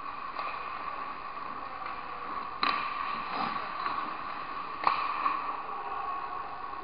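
Indoor ice rink sound of a hockey game: a steady hum and hiss of the arena and skates on ice, with two sharp clacks of hockey sticks and puck about two and a half and five seconds in.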